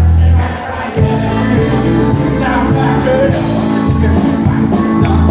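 Live country band playing: a male singer with acoustic guitar, backed by bass and drums. A low held note falls away just before a second in, then the full band comes back in.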